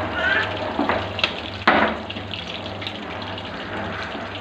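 Chicken pieces deep-frying in hot oil with a steady sizzling hiss, while metal tongs scrape and clink against the metal pan a few times. The sharpest clink comes a little under two seconds in.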